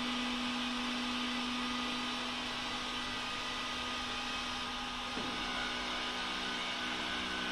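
Small electric motor of a CROSSRC WT4 RC tow truck's flatbed mechanism running with a steady whine as the loaded bed tilts and slides back into place; the pitch shifts briefly about five seconds in.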